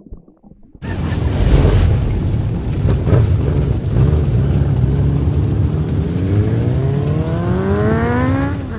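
A vehicle engine under loud rushing noise, its pitch rising steadily over the last few seconds as it revs up, then cut off suddenly.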